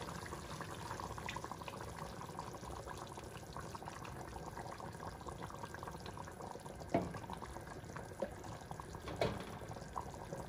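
Chicken in tomato sauce simmering in a pot, bubbling steadily, with a couple of short knocks about seven and nine seconds in.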